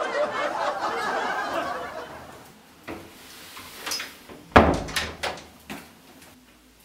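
Apartment front door shut with one loud thud about halfway through, with a few sharp latch and lock clicks just before and after it.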